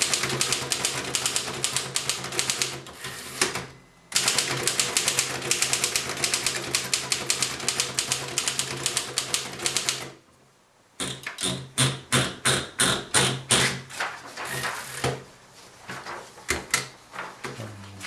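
1919 L.C. Smith & Bros. No. 8 manual typewriter being typed on. Fast runs of typebar strikes go on for about ten seconds with a short break near four seconds. After a pause of about a second, slower, separate strikes follow and thin out toward the end.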